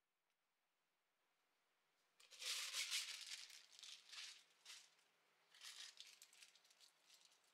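Soft rustling and crinkling in several short bursts as a person moves close and reaches in at a desk. The first and loudest comes about two seconds in, with fainter ones after it.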